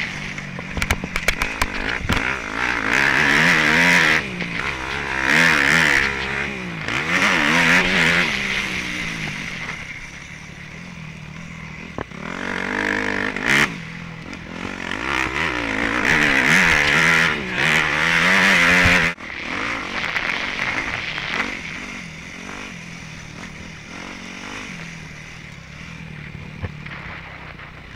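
Dirt bike engine revving up and falling back again and again under hard riding on a dirt track, with wind rushing over the microphone. About 19 seconds in it drops suddenly to a lower, steadier running.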